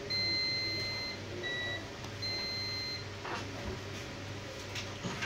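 Digital multimeter's continuity beeper sounding three times as its probes touch points on a computer motherboard. The first beep lasts about a second, the second is short, and the third runs a little under a second. The beep signals a low-resistance path between the probed points.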